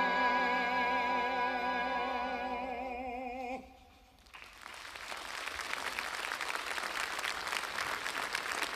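A baritone holds the song's final note with a wide vibrato over a sustained orchestral chord, both cut off together about three and a half seconds in. After a short hush the audience starts applauding, and the applause grows louder.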